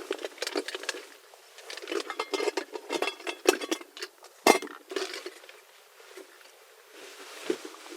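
Metal cooking utensils and pots being handled and set out, clinking and rattling in quick runs, with one sharper knock about four and a half seconds in.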